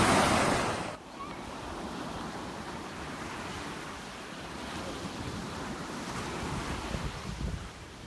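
Sea surf washing up a sandy beach. A louder, fuller wash cuts off abruptly about a second in, giving way to a softer, steady wash of small waves, with some wind buffeting the phone's microphone near the end.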